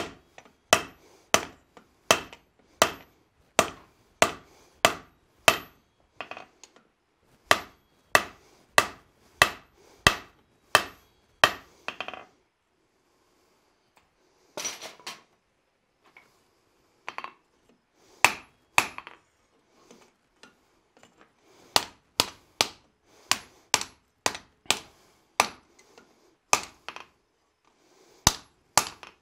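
Hand hammer striking red-hot steel on an anvil: a blacksmith drawing out and shaping the ears of a wrapped-eye axe blank. The blows come in runs of one to two a second, each with a short, bright anvil ring, with a pause about twelve seconds in and another short pause near twenty seconds.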